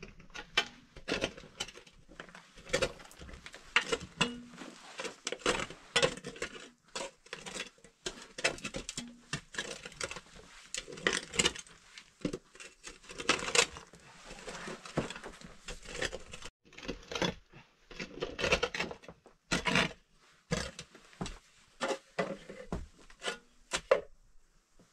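Shovel digging into dry, stony soil: a long run of irregular scrapes and knocks as the blade bites into the dirt and strikes stones.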